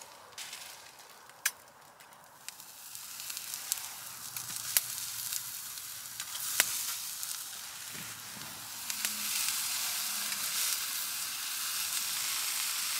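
Sausages sizzling on a grill over hot coals in a Bushbox folding stove. The sizzle builds up and is loudest in the second half, with a few sharp clicks.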